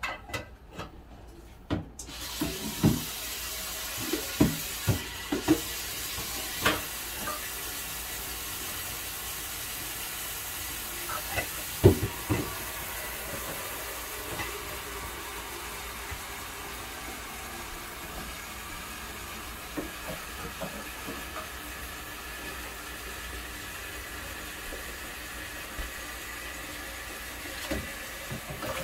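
A covered pot boiling on an electric stove. A steady hiss of steam starts abruptly about two seconds in and carries on, with scattered pops and knocks as it bubbles.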